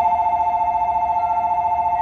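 Electronic departure bell on a railway station platform ringing steadily in two tones with a fast trill, signalling that the train is about to leave.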